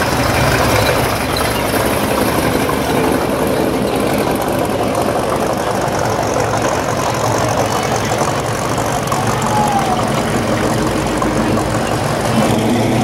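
Engines of classic cars and hot rods running at idle as they roll slowly past one after another, a steady low engine sound. A louder engine note comes in near the end.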